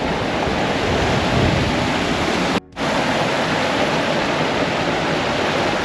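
Small waterfall in a gorge, a steady loud rush of water. It cuts out abruptly for a split second a little before halfway through.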